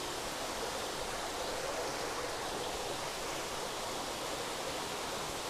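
Steady rushing of flowing water in recirculating aquaculture fish tanks.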